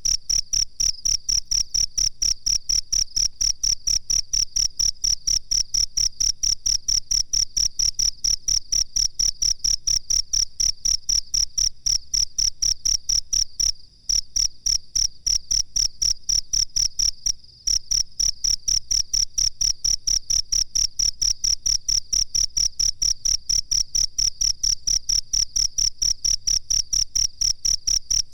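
Cricket chirping in an even, rapid pulse of high-pitched chirps, about four a second, with two brief breaks midway.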